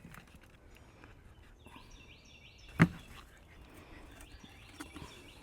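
A songbird singing a rapid series of short, repeated slurred notes for about two seconds. Partway through, a single sharp knock is the loudest sound, with faint small knocks and rustles of potting work around it.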